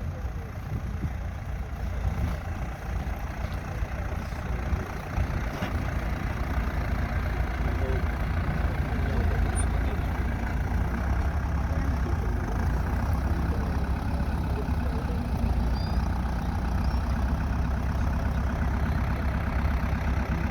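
Tractor engine running steadily while ploughing, a low, continuous engine sound that grows a little louder and more even about a third of the way in.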